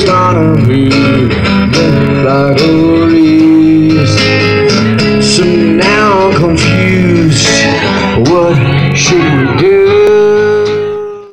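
Live band performing: a man singing over strummed acoustic and electric guitars, closing on a held note before the sound fades out near the end.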